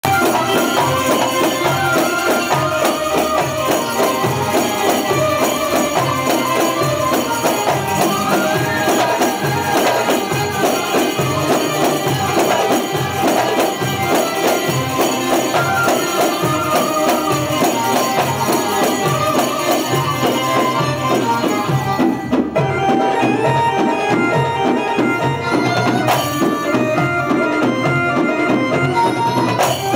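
Live Egyptian oriental dance band playing an entrance piece for a belly dancer, with melody instruments over tambourine-like jingling percussion. The jingling percussion drops out for a few seconds about two-thirds of the way through, then comes back.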